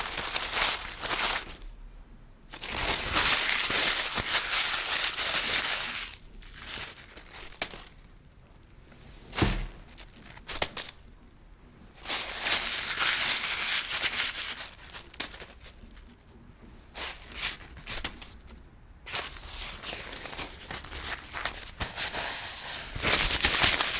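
Paper being handled and crumpled: bursts of crackling and crinkling lasting a few seconds each, with short pauses and a sharper snap about halfway through.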